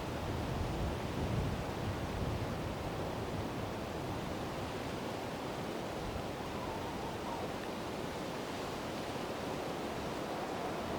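Heavy wind blowing steadily outdoors, a continuous rushing noise with a stronger low, rumbling gust about a second in, where it buffets the microphone.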